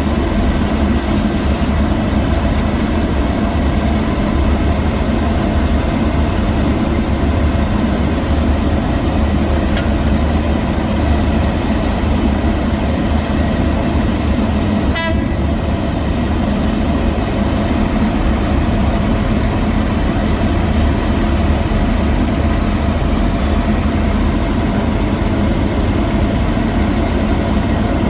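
Heavy diesel road-construction machinery running steadily with a deep rumble and a steady hum, with a brief sharp click about ten seconds in and a short clatter about fifteen seconds in.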